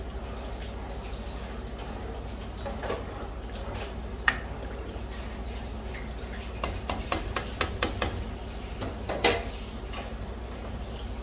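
Plastic spatula stirring a watery tomato broth in a granite-coated pan: liquid sloshing, with the spatula clicking and knocking against the pan. A run of quick clicks comes a little past halfway and the loudest knock near the end, over a steady low hum.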